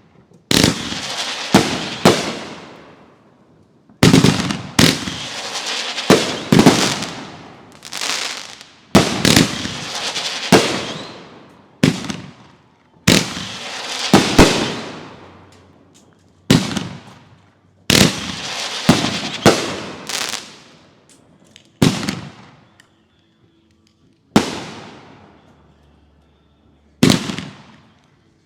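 Consumer fireworks bursting in a rapid series: sharp bangs, some in quick pairs, each trailing off over a second or two, with a short lull about four-fifths of the way through.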